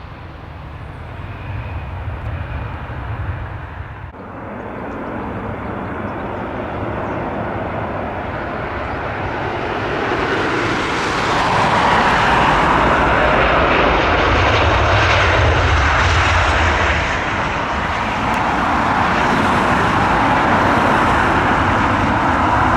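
Twin-engine jet airliner arriving: its engine roar builds over about eight seconds, then stays loud as the aircraft passes.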